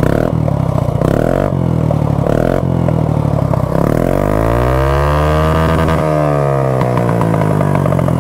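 Yamaha Fascino scooter's single-cylinder engine running through an aftermarket Akrapovic exhaust with the dB killer removed: three short throttle blips, then one long rev that rises and falls before it settles back to idle.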